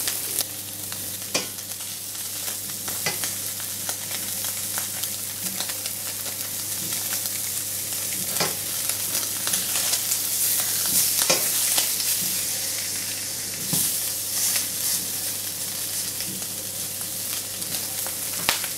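Pork steaks searing in a smoking-hot nonstick frying pan: steady sizzling. The spatula knocks and scrapes on the pan several times as the steaks are turned.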